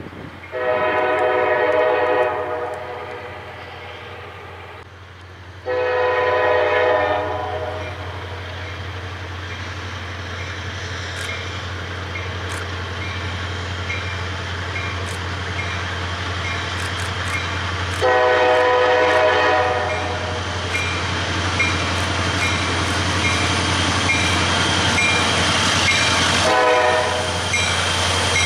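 CSX diesel freight locomotive sounding its air horn in four chord blasts, three of about two seconds and a shorter one near the end, over the steady drone of its diesel engines, which grows louder as the train approaches.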